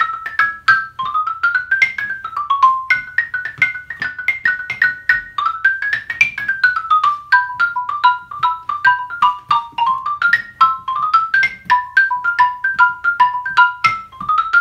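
Xylophone played with two mallets: a continuous run of quick single notes, about four a second, stepping up and down through an embellished melody line.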